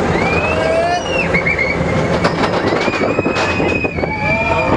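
Expedition Everest roller coaster train running along its track: a steady rumble with bursts of rattling clicks and high, drawn-out squeals that bend in pitch, one held for about two seconds near the end.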